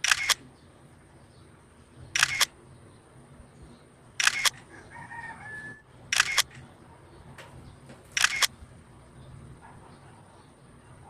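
Camera shutter clicks, each a quick double snap, repeating about every two seconds, five times, as a series of posed photos is taken.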